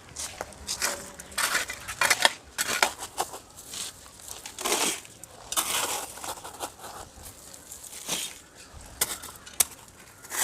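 Homemade hand spade, its blade cut from an old ceiling-fan blade, scraping and chopping at ground and weeds in irregular strokes, with a few sharp clicks near the end.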